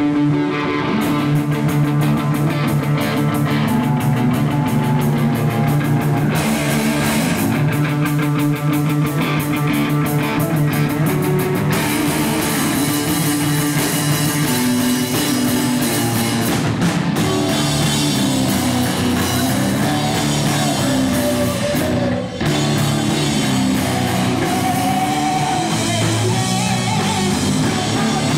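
Live rock band playing an instrumental passage: distorted electric guitar, electric bass and drum kit. The drums come in about a second in, the cymbals grow denser partway through, and there is a split-second break late on.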